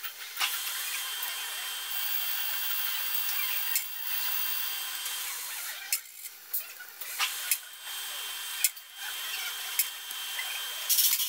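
Socket wrench backing off the camshaft bearing-cap nuts on a Volkswagen 1.9 diesel cylinder head, each loosened a little at a time so the hydraulic lifters pushing up on the cam lobes cannot break the camshaft. A steady scratchy metallic noise for about the first six seconds, then a string of separate clicks and knocks of the tool on the nuts.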